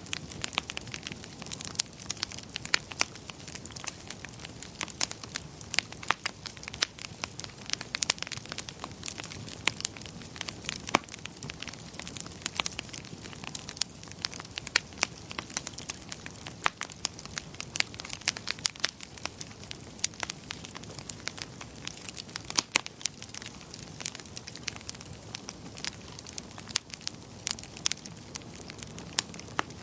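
Wood fire crackling in a fireplace: many sharp, irregular snaps and pops over a soft, steady low rumble of burning.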